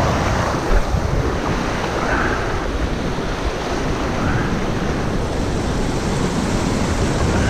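Sea surf washing against a rocky shoreline, with wind rumbling on the microphone.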